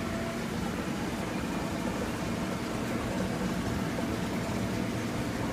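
Steady background hum and hiss of store room noise, with no distinct event.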